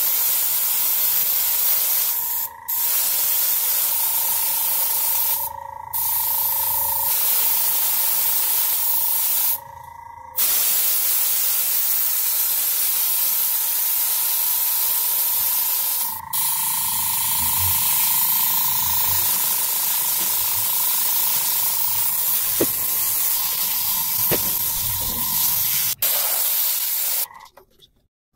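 Airbrush spraying acrylic paint: a steady hiss of air and paint, with a faint steady whine beneath it. The hiss breaks off briefly a few times, about 2.5, 6, 10 and 16 seconds in, and dies away near the end.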